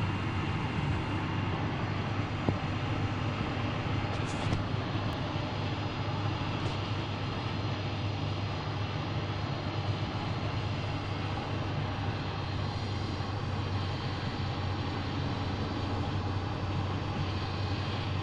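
2007 Subaru Impreza 2.5i with a manual transmission running, a steady low hum with a faint high whine held over it. The owner says the whine has only just started at about 60,000 miles and does not know its cause; he puts it down to the manual transmission.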